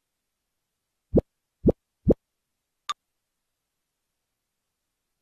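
Three quick, low cartoon plop sound effects about half a second apart as the animated octopus moves over to the chair, then a single faint click.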